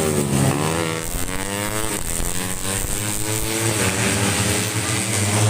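Tuned 150 cc four-stroke underbone racing motorcycles passing at speed. Several engine notes overlap, their pitch falling and then rising again as the bikes go by and rev up.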